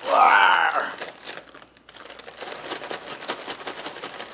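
Potato chip bag being pulled open, then crinkling and rustling as a hand rummages inside it. The opening is marked by a loud pitched sound under a second long that falls in pitch.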